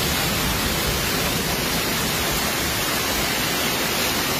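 Heavy hailstorm coming down: a dense, steady hiss with no single impacts standing out.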